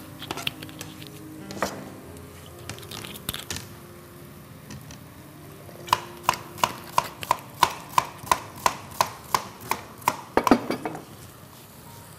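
Chef's knife chopping an onion on a cutting board: a few scattered knocks, then from about six seconds in a steady run of about a dozen even knife strikes on the board, about three a second, ending in a quick flurry near the end.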